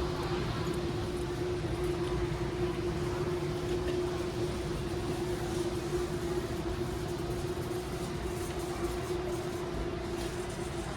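A steady mechanical hum, one constant droning tone, over the diffuse background noise of a large store.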